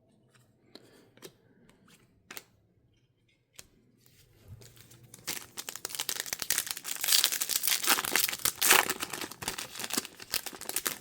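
A few light taps from cards being handled, then a trading-card pack's foil wrapper being torn open and crinkled for several seconds, loudest partway through.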